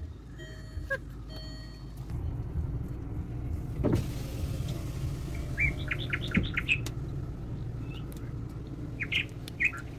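Car engine idling with a steady low rumble, a thump about four seconds in, and bird chirps in quick short runs around the middle and again near the end.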